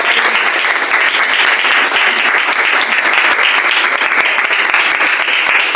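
A small group of people applauding, a steady, dense clapping of many hands.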